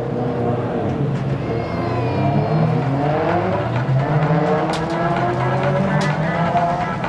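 Subaru rally cars' turbocharged boxer engines revving up and down hard as they run the demo course, with two sharp cracks a second apart in the second half.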